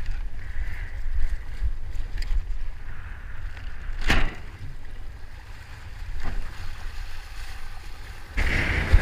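Windsurf board planing through choppy water, with wind buffeting the microphone in a steady low rumble over the hiss of rushing water. There is a sharp short hit about four seconds in and a fainter one about two seconds later. The rush and hiss jump suddenly louder near the end.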